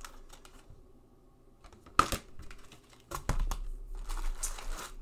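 Hands handling stiff planner covers and a spiral-bound planner in a box: a few light clicks, a sharp tap about two seconds in, more clicks, then crinkling of the plastic wrapping around the planner for the last second and a half or so.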